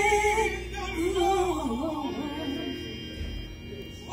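Karaoke singing over a recorded backing track: a voice holds a high note with vibrato, then moves into softer, lower, wavering phrases, and a new strong note starts right at the end.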